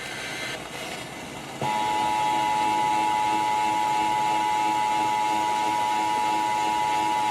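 Emergency Alert System attention signal, a steady two-tone alarm, starts suddenly about a second and a half in and holds. It announces the Required Monthly Test message that follows. Before it there is only a low hiss of background noise.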